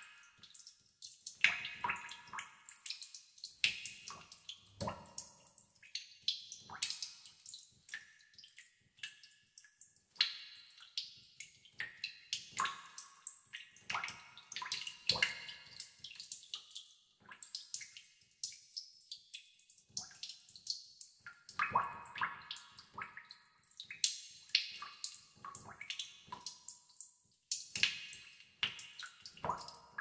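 Water droplets falling into a pool in a cave, a few drops each second at irregular intervals. Each drop is a short sharp plink, some with a brief ringing pitch, echoing off the cave walls.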